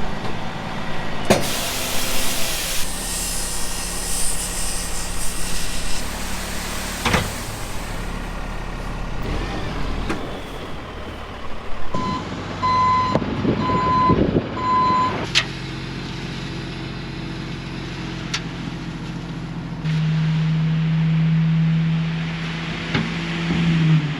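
Heavy diesel concrete truck engine running on a job site, with a backup alarm beeping three times about halfway through and a few sharp clanks. Near the end the engine steps up to a louder, steady pitch.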